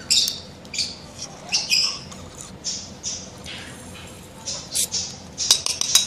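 Baby parrot chicks calling in short, raspy bursts. Near the end come a few sharp clicks of the metal syringe tip against the steel bowl of hand-feeding formula.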